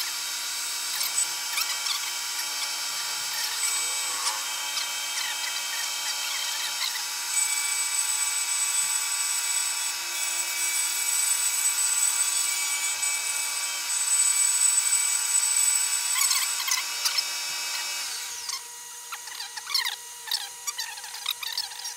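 Milling machine cutting into a wooden block: a steady motor whine under a loud, hissing cut. The cutting noise drops away about 18 seconds in, leaving the machine's whine and light scratchy clicks.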